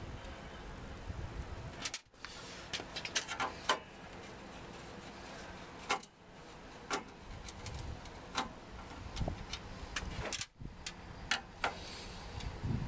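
Screwdriver undoing the crosshead screws along the top of a Land Rover Defender's front panel: scattered small metallic clicks and ticks, some in quick runs.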